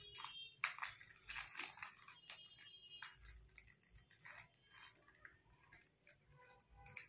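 Faint, irregular crinkling and crackling of a thin plastic bag as a ringneck parrot pecks and bites at it with its beak.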